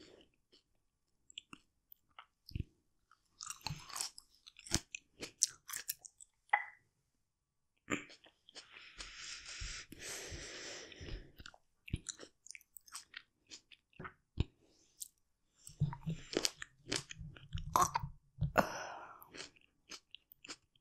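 Close-miked human chewing: a person eating with wet mouth clicks and smacks, broken by a few longer breathy stretches.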